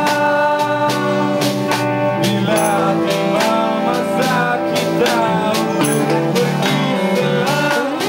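Live acoustic song: a man singing in Malay to a steadily strummed acoustic guitar.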